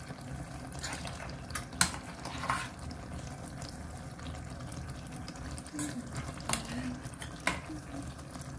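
A spoon clinking a few times against the pan and bowl as fresh cream is spooned into a chicken curry, over a steady low background noise.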